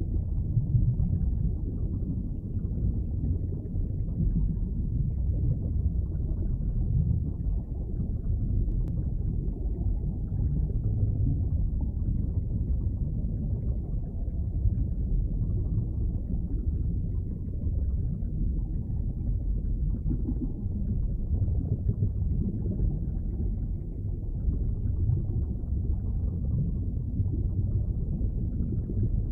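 Underwater ambience: a steady, muffled low rumble of water heard from below the surface, with no distinct bubbles, clicks or calls.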